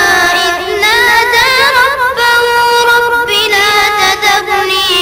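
A child chanting the Quran in the melodic recited style, one voice with long held notes, wavering ornaments on them, and a few short pauses between phrases.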